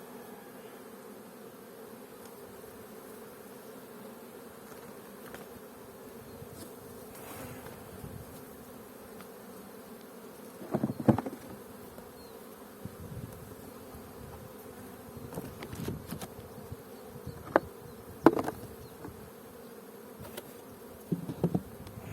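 Honeybees humming steadily around the hive, with a few sharp knocks, loudest about eleven seconds in and twice more around seventeen to eighteen seconds.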